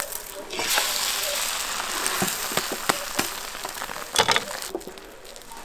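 Thin beaten-egg sheet sizzling in an oiled square frying pan just after being flipped. The sizzle surges about half a second in and dies down near the end. The spatula knocks and scrapes against the pan several times, loudest about four seconds in.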